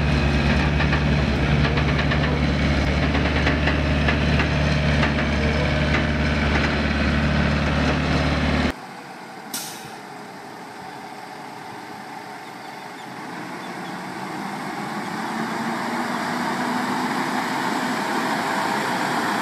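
A loud, steady diesel drone from a heavy-lift multi-axle modular trailer rig, which cuts off abruptly about halfway through. It gives way to heavy-haul tractor trucks pulling a convoy of loads: their engines rise in pitch and grow louder as they pull through, with one short sharp hiss or click just after the cut.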